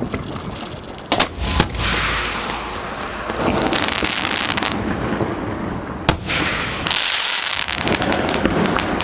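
Fireworks going off at close range: sharp bangs about a second in, again half a second later and around six seconds in, with long stretches of hissing crackle between. A rapid run of crackling pops comes near the end.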